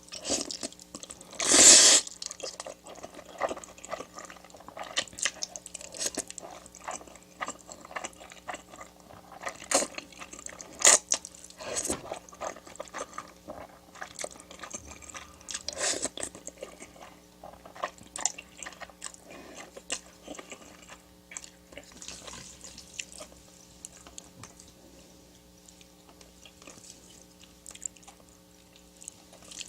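Close-miked eating: irregular biting, chewing and crunching of food, with a loud noisy burst about a second and a half in. A faint steady hum runs underneath.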